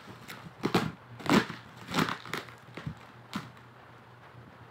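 Plastic packaging wrapped around a box crinkling and tearing as it is pulled open by hand, in several short bursts that die down after about three and a half seconds.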